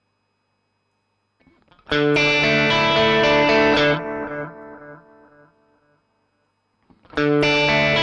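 Electric guitar phrase played through an MXR Carbon Copy analog delay pedal, starting about two seconds in; after it stops, its repeats fade away over a second or so. The phrase starts again near the end.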